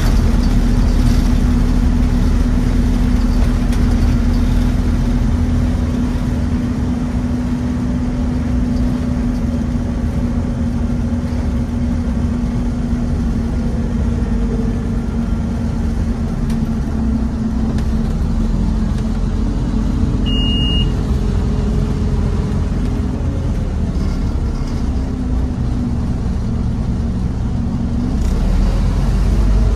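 Interior sound of a Scania N230UB OmniCity single-deck bus under way: its five-cylinder diesel engine drone over road rumble, easing off from about a fifth of the way in and picking up again near the end. A short high beep sounds about two-thirds of the way through.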